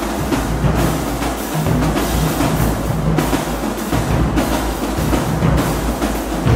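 College marching drumline playing a loud, continuous percussion feature: tenor drummers on multi-drum tenor sets (quints) over the line's bass drums, with no break.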